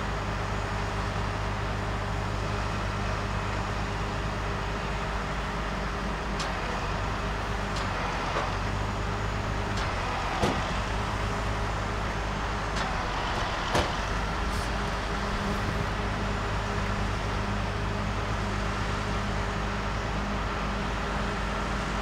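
Heavy wrecker's diesel engine running steadily while its boom hoists an overturned concrete mixer truck. Two sharp knocks come midway through.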